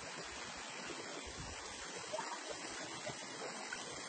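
Faint, steady rushing of water from a rocky mountain stream.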